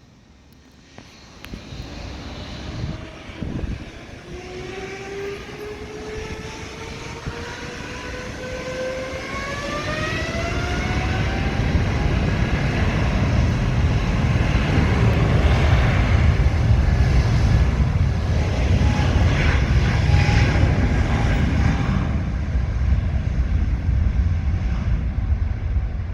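Boeing 777 jet engines spooling up: a whine that rises steadily in pitch, then a loud, steady roar that builds to its peak and eases slightly near the end.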